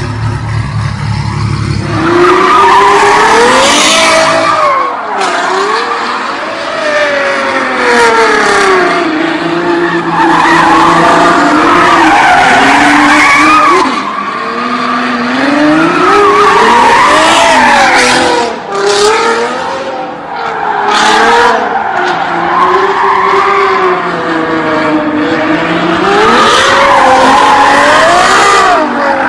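Ferrari FF's V12 idling, then from about two seconds in revving hard, its pitch rising and falling over and over, with tyres squealing and skidding through repeated donuts.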